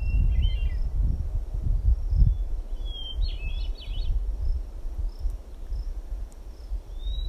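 Wind buffeting the microphone with a fluctuating low rumble. A songbird sings short phrases over it, a brief rising whistle followed by a quick run of notes, once near the start and again about three seconds in. A faint, evenly repeated high chirp runs on in the background.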